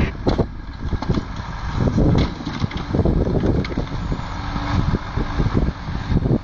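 Timber truck's diesel engine running under load while its truck-mounted crane loads pulpwood, with irregular knocks and clunks of logs being gripped and dropped onto the load.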